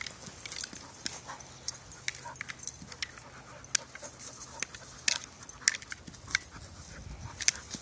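A dog playing with a toy ball on dry grass and dirt: scattered sharp clicks and taps from paws, mouth and ball, irregular and several a second.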